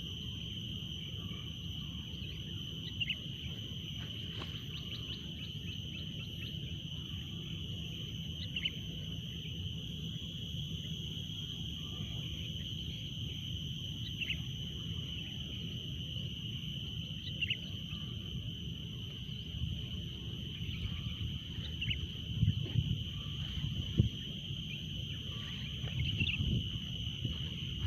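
Outdoor ambience: a steady high-pitched insect drone, with short bird chirps every few seconds. Low rustling and handling bumps come near the end.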